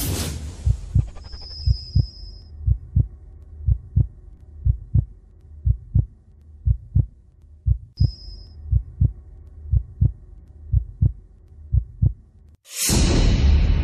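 Heartbeat sound effect: slow, steady low thumps in lub-dub pairs about once a second over a faint hum. Near the end the beat stops and a loud sudden hit opens into a dark, noisy droning score.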